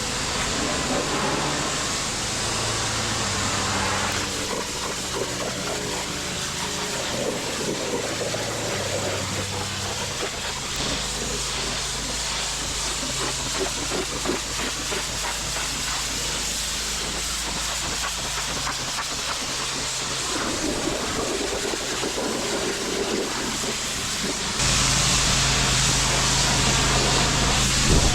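Pressure washer spraying water in a steady hiss, with the washer's engine-driven pump running underneath. The sound shifts abruptly a few times and is louder for the last few seconds.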